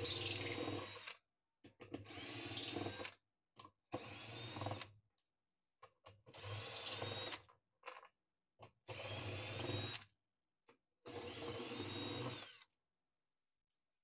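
Cordless drill-driver with a 10 mm socket unscrewing the bolts that hold a washing machine's basket to its hub. It runs in six short bursts of about a second each, its whine rising as each burst spins up, with small clicks between the bursts as the socket is moved from bolt to bolt.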